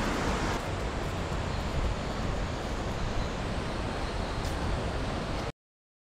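Steady rush of a mountain stream's flowing water, with low rumbling wind noise on the microphone; it cuts off suddenly about five and a half seconds in.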